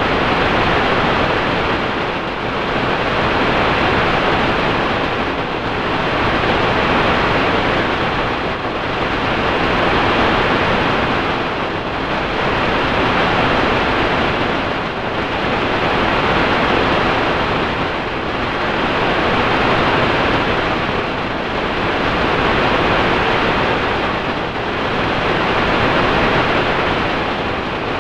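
Electronically processed noise from a sound-effect track: a steady rush that swells and fades about every three seconds, like surf.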